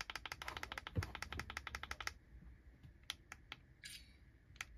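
Plastic button on a 15th Doctor's sonic screwdriver toy clicked rapidly, about ten taps a second for two seconds, then a few single clicks. The rapid tapping is an attempt to switch the toy's colour and sound-effect mode, which is changed by tapping it 15 times.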